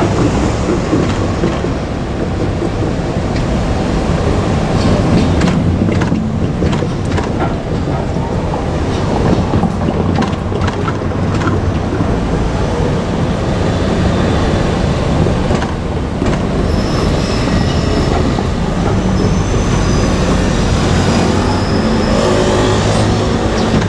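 JR Kyushu KiHa 47 two-car diesel railcar running past at close range: a steady diesel engine hum with the wheels clicking on the rails. In the last third a thin, high wheel squeal comes and goes.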